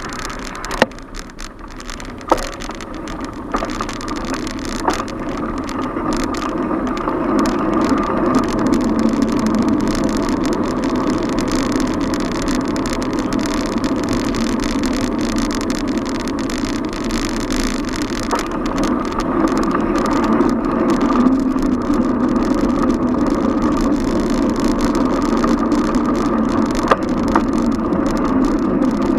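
Steady road and traffic noise heard from a bicycle being ridden through city streets, growing louder over the first several seconds, with a few sharp knocks in the first five seconds.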